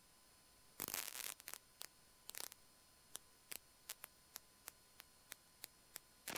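Near silence with faint static crackles about a second in, then a run of soft ticks about three a second.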